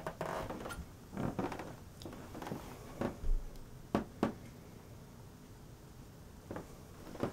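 A few faint, short knocks and rustles over quiet room tone.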